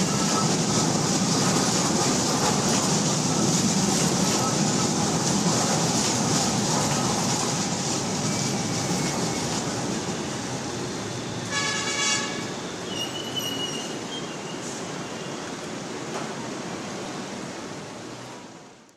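Third-generation Nippon Sharyo LRT-1 light rail train running past, a steady rush of wheels on rail that slowly fades as the last car goes by. A brief high tone sounds about twelve seconds in.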